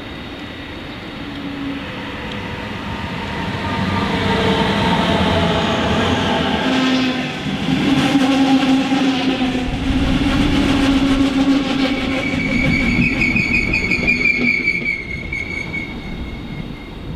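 Electric regional train, a DB locomotive hauling double-deck coaches, passing close by. Its running noise builds over the first few seconds and stays loud, with several steady whining tones from the locomotive's drive, then drops away near the end while a high steady tone sounds.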